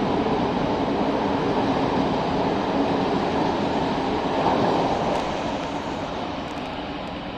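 Passenger train rolling along the track below and moving away: a steady rumble of carriage wheels on the rails that fades over the last couple of seconds as the driving car at the rear passes and draws off.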